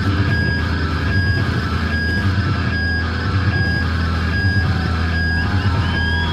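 Loud amplified stage sound: a steady low drone with a high electronic tone pulsing on and off at an even pace, a little more than once a second, like a looped beep.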